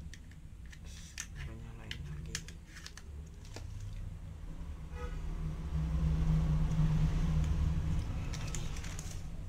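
Light clicks and rustles from hands handling a small plastic action camera and its paper manual. Then a road vehicle passing by: a low rumble that swells, is loudest around six to seven seconds in, and fades.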